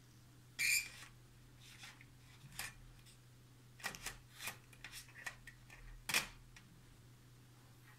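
Short scratchy rustles and taps, about a dozen spread unevenly through, the loudest a little after half a second in and again about six seconds in: a kitten batting at a hanging cable and shifting on a fabric couch.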